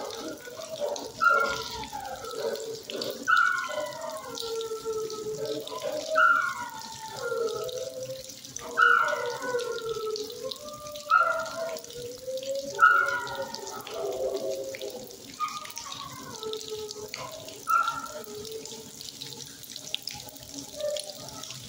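Dogs barking in drawn-out, howling barks, one every two to three seconds, echoing off the hard kennel walls, over a steady hiss.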